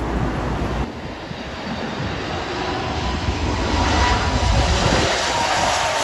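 Aircraft engines of a passing airliner, a steady rushing noise with a faint whine that swells to its loudest about four to five seconds in.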